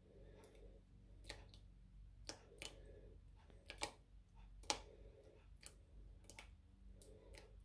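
Faint, scattered small clicks and taps of hands crumbling a cube of fresh yeast over a glass bowl of water, the fingers now and then knocking the glass, with one sharper tap near the middle.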